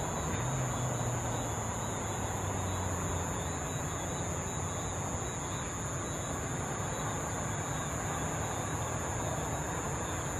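Boeing 747 jet engines running as the airliner taxis onto the runway, a steady distant rumble with a low hum that neither rises nor falls. A steady high-pitched whine runs alongside.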